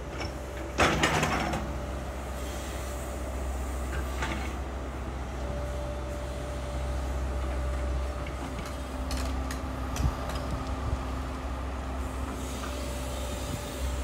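Excavator's diesel engine running steadily as a low rumble, with a faint whine coming and going. A loud clank comes about a second in, and a few sharp knocks follow later as the bucket works in the trench.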